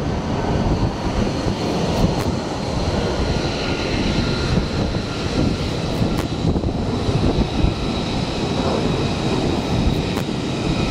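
F-35C's single turbofan engine running at taxi power as the jet rolls across a carrier deck: a steady rumble with a thin high whine over it.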